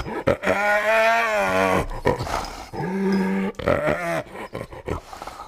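Kangaroo growling: two drawn-out growls of about a second each, with shorter grunts around them.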